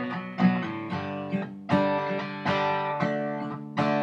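Solo acoustic guitar strumming chords, each strum ringing on until the next.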